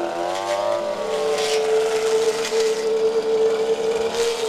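Brush cutter's small petrol engine running. Its pitch rises about half a second in, then holds a steady high whine, with a few short rasps as it cuts grass.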